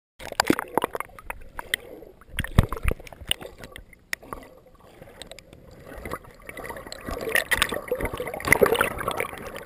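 Water churning and gurgling around a camera in its waterproof housing as it goes from the surface to under the water, heard muffled through the case, with irregular sharp knocks against the housing. The knocks and sloshing thin out in a lull around the middle, then build again near the end.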